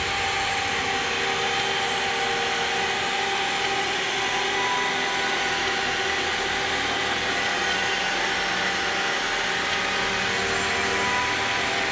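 Ambient electronic soundtrack music: a steady, dark drone of held tones over a hissing, noisy wash, with no beat or breaks.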